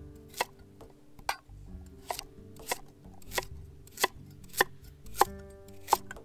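Knife chopping food on a cutting board in a steady rhythm, about nine strokes, one roughly every two-thirds of a second, with soft background music underneath.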